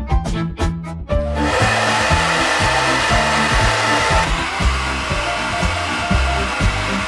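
Hand-held hair dryer switched on about a second in, running with a steady blowing hiss; a little past the middle the upper part of the hiss drops as a cone-shaped silencer is fitted over the dryer's rear air intake. Background music with a bass line plays throughout.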